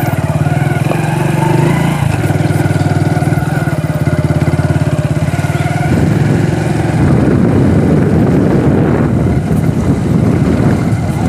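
Motorcycle engine running at a steady speed while riding, its firing pulses even. About six seconds in the sound turns rougher and noisier.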